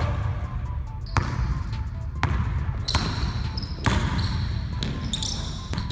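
Basketball dribbled on a hardwood gym floor, about five bounces roughly a second apart, with short sneaker squeaks on the court near the middle and the end.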